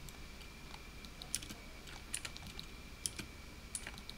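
Scattered sharp clicks of a computer keyboard and mouse at a desk, a dozen or so irregular taps with a few louder ones.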